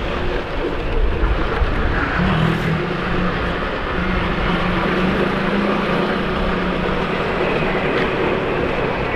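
Ride on a motorcycle through dense city traffic: steady engine, road and wind noise from the moving bike. A steady low engine hum comes in about two seconds in and fades out around seven seconds.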